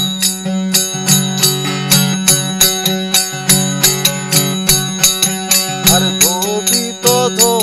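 Kartal, wooden clappers fitted with metal jingles, played in a steady jingling rhythm of about three strokes a second over the steady drone of a tambura, an instrumental break in a Malwa folk bhajan. A sliding melodic line comes in briefly near the end.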